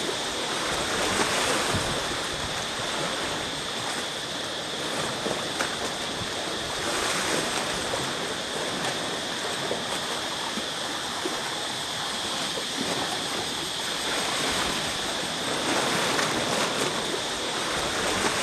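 Wind rushing on the microphone over sea and surf noise: a steady, even hiss with a thin, steady high tone above it.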